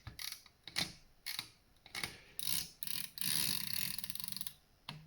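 Carriage mechanism of a ca. 1909 Thürey typewriter being worked: several separate sharp clicks, then about three seconds in a run of fast ratcheting clicks lasting over a second.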